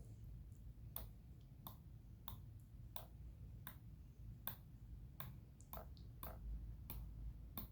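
ARES 42113 swivel-head 1/4" drive 90-tooth bit ratchet clicking faintly as it is turned slowly in its free direction: a sharp single tick about every two-thirds of a second, each one the pawl dropping over a tooth while the ratchet's backdrag is measured.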